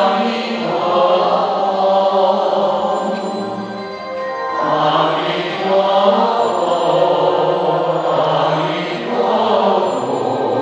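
Buddhist chanting by many voices together, slow and sustained, the held notes shifting gradually in pitch.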